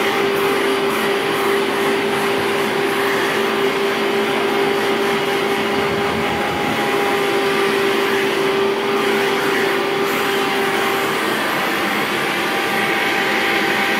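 Rainbow water-filtration vacuum cleaner running steadily, its hose nozzle drawn over a cat's fur. One steady tone in its whine drops out about eleven seconds in.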